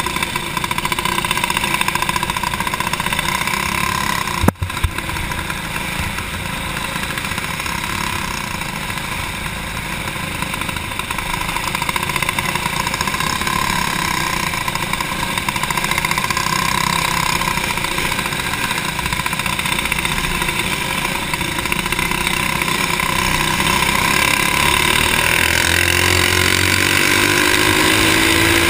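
Stock four-stroke kart engine running hard at racing speed, heard from on board the kart. There is one sharp knock about four and a half seconds in, and near the end an engine note climbs in pitch as revs rise.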